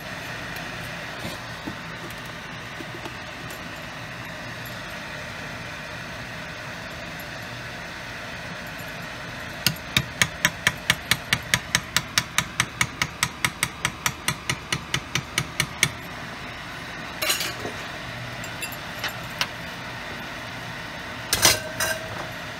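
A rapid, even run of sharp taps or clicks on a jar of ghee, about five or six a second for some six seconds, with a few single knocks later on, over a steady background hiss.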